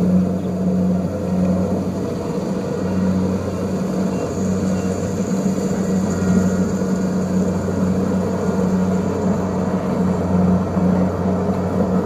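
Kubota DC-70 rice combine harvester running steadily as it cuts rice: a constant, even diesel engine hum.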